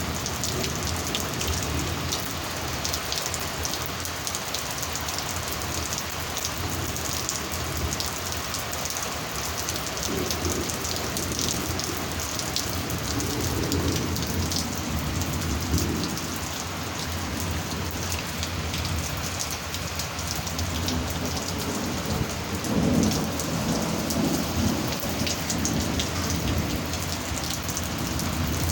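Steady heavy rain from a thunderstorm, with drops spattering sharply close by. Low rumbles of thunder swell up around the middle and again, loudest, about two-thirds of the way through.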